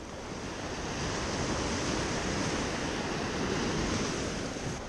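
Small waves breaking and washing up a sandy beach: a steady rush of surf that builds about a second in.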